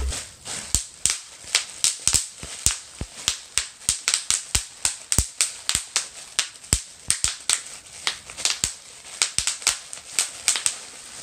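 Bubble wrap being popped by hand, the air bubbles bursting one after another in sharp snaps, several a second at irregular spacing.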